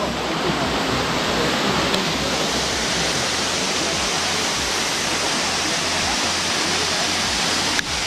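Steady rushing of a waterfall about 56 feet high, pouring into a deep pool, with a momentary break near the end.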